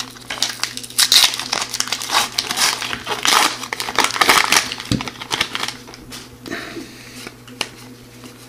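The plastic wrapper of a 2015-16 O-Pee-Chee hockey card pack being torn open and crinkled by hand: a dense run of crackling from about half a second to about five seconds in, then a few softer rustles near the end.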